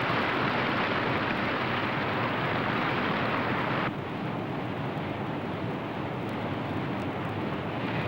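Steady rushing of whitewater, with a brighter, louder rush that drops to a softer, duller one about four seconds in.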